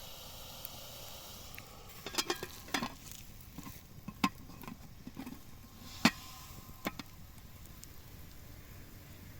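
A cooking utensil knocking and scraping against a pot or dish: a quick run of sharp knocks about two seconds in, then a few single knocks, the loudest about six seconds in, over a faint steady hiss of food cooking.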